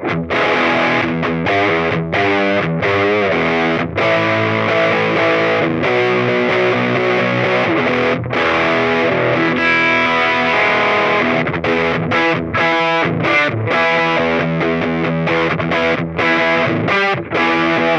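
Electric guitar, a Gibson SG, played through an EarthQuaker Devices Crimson Drive germanium overdrive pedal into a small Fender Champ amp: a saturated overdriven riff of chords and single notes, with brief breaks between phrases.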